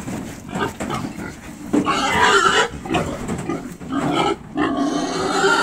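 Pigs squealing loudly, with two long squeals about two and five seconds in and shorter cries between.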